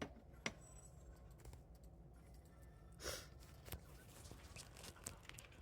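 Near silence: room tone with a few faint clicks and one short, soft breathy sound about three seconds in.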